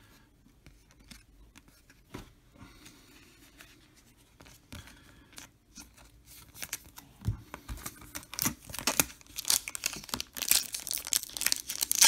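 Foil wrapper of a trading card pack crinkling and tearing as it is pulled open by hand, dense and loudest over the last four seconds. Before that come only faint taps and rustles of cards being handled.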